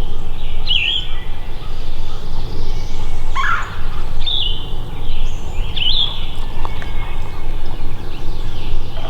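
Songbirds chirping in woodland: a handful of short, high chirps a second or two apart, with one lower swooping call about three and a half seconds in, over a steady low rumble.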